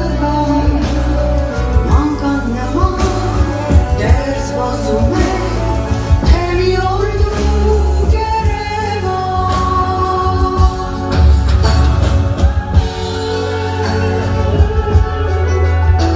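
A woman singing an Armenian song live with a band of drums, bass and keyboards, amplified through a concert hall's sound system, with a strong pulsing bass under the melody.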